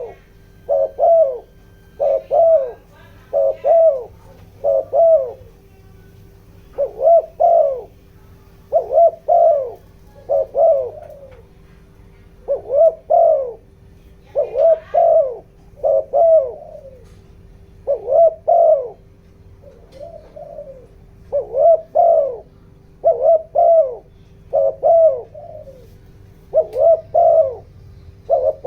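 Spotted dove cooing over and over, short coo notes in quick runs of two or three with brief pauses between them, over a faint steady hum. It is the rapid 'thúc gù' cooing of a decoy dove, the call used to stir wild doves to answer.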